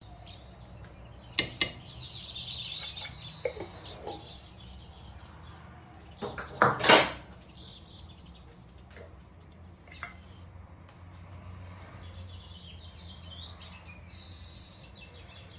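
Kitchen dishes and utensils clinking, with a louder clatter about seven seconds in, while birds chirp in the background.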